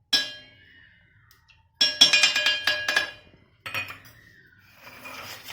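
Metal kitchen utensils clinking against a metal cooking pot, each hit leaving a short ring. There is one clink at the start, a quick run of clinks about two seconds in, and another clink a little after.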